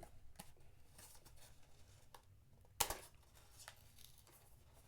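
Faint handling of a small blind-box package, with light scattered ticks and one sharp click about three seconds in.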